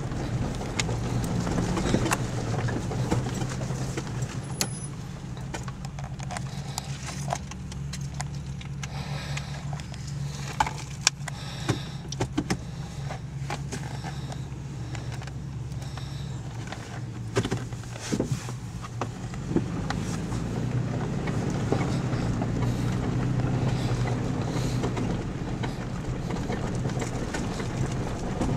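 Toyota FJ Cruiser's 4.0-litre V6 running low and steady as it crawls a rocky trail, heard from inside the cabin. Scattered knocks and rattles come through over the rough ground, most of them around ten to twelve seconds in and again around seventeen to nineteen seconds.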